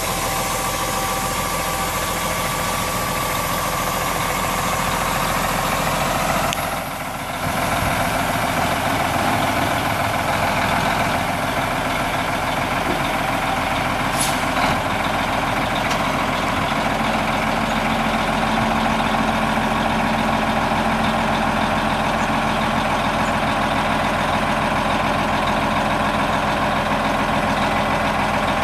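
A Detroit Diesel Series 60 11.1-litre inline-six diesel idles steadily. About two-thirds of the way in, a steady low hum joins it as the PTO-driven hydraulic hoist starts lifting the steel grain box.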